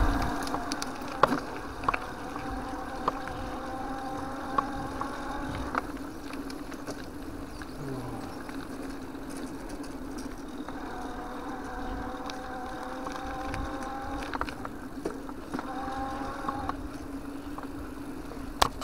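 Electric-assist bicycle motor whining steadily under load on a climb, its pitch wavering a little. Tyre hum and occasional light knocks from the bike run under it.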